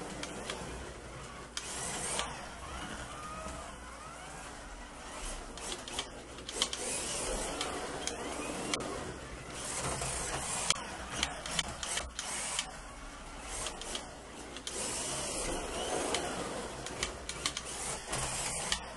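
A 1/32 scale slot car, a vintage Jaguar, lapping a plastic slot car track: its small electric motor whines and its wheels and guide rattle along the slot. The sound swells and fades as the car comes past and goes away again, with sharp clicks and knocks here and there.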